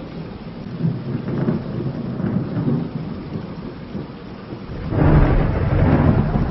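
Rain with low rumbling thunder; a loud thunderclap breaks about five seconds in and keeps rolling.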